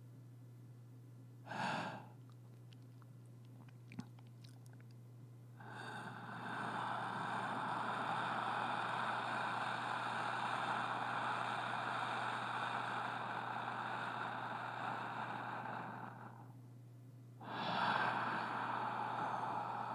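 A person breathing slowly and deeply close to the microphone: a short breath about two seconds in, one long drawn-out breath of about ten seconds starting around six seconds in, then another breath beginning near the end. A steady low hum runs underneath.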